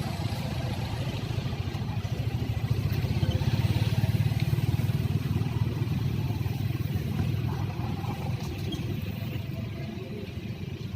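A vehicle engine running as a low, steady rumble, swelling about three to five seconds in and then slowly easing off.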